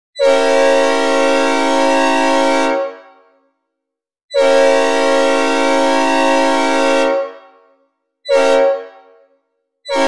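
Synthesized recreation of a Nathan P5A "Old Cast" five-chime train horn sounding the grade-crossing signal: two long blasts of almost three seconds each, one short blast, and the final long blast starting just at the end. Each blast is a steady, loud chord that stops cleanly with a short reverberant tail.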